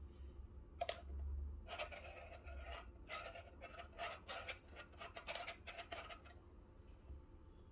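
Metal spoon scraping spent coffee grounds out of a pressurized dual-wall portafilter basket: a single click about a second in, then a quick run of short scraping strokes for about four seconds. The grounds stick in the dual-wall basket and will not knock out cleanly.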